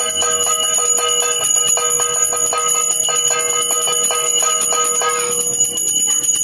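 Small brass puja hand bell rung rapidly and continuously, its strikes following close on one another over a high sustained ring. A steady lower tone sounds under it and stops about five seconds in.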